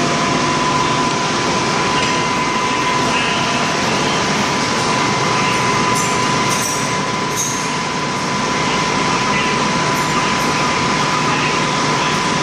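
Lathe running steadily with a constant high tone while the tool takes a light turning cut to bring the part running true (concentric). A few brief high squeaks come about six to seven and a half seconds in and again near ten seconds.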